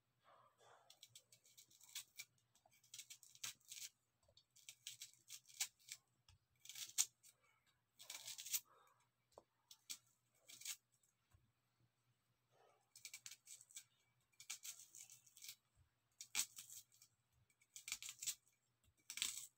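Serrated knife cutting through an onion held in the hand, faint short crisp crunches coming in little clusters every second or two.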